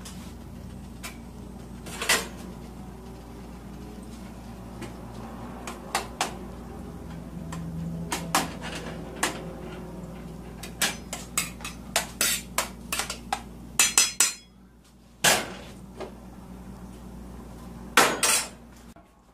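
A utensil stirring tomato sauce in a stainless-steel saucepan, knocking and clinking against the pot's metal sides and rim in a run of sharp taps, over a low steady hum.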